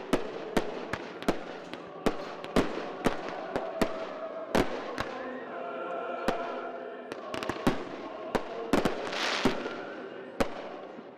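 Fireworks display: an irregular string of sharp bangs, about two a second, with a burst of crackling hiss about nine seconds in.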